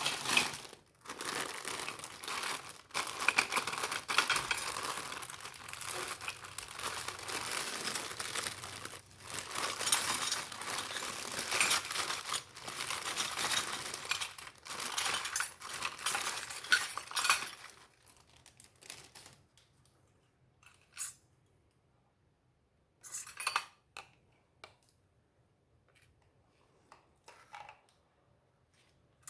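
Plastic packaging crinkling and tearing as it is unwrapped, continuously for about the first seventeen seconds. After that there are only a few short handling sounds with quiet between them.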